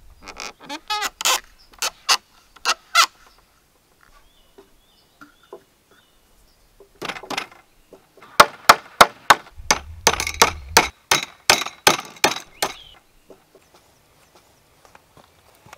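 Sharp knocks on wood as a freshly hewn wooden frame is worked by hand: a few strikes in the first three seconds, then a quick run of about three or four strikes a second for several seconds. Faint high chirps can be heard in the pause between them.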